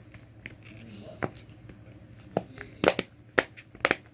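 Simple dimple fidget toy's silicone buttons being pushed: a series of sharp clicks, about seven, coming faster toward the end.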